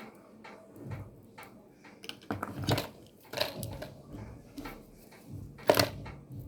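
Irregular clicks, rustles and sharp snaps of hands working a network cable and hand tools, the loudest snap near the end.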